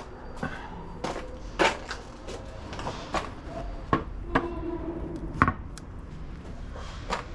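Scattered hard clicks and knocks of tools and engine parts being handled, about ten over several seconds, one near the middle leaving a short ring.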